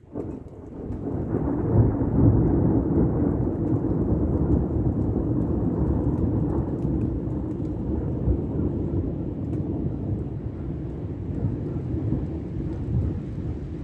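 Long roll of thunder: a low rumble that swells over the first couple of seconds, then goes on steadily and slowly eases off.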